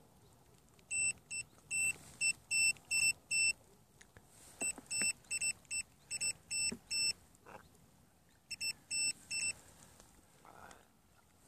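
Short, identical high-pitched electronic beeps, about three a second, in three runs with pauses between: the signal beeps of a bait boat's sonar and remote-control electronics. A few faint clicks sound between the runs.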